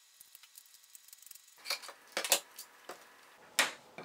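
Light clicks and knocks of 3D-printed plastic parts being handled and set down on a tabletop, starting about a second and a half in, the loudest knock about three and a half seconds in.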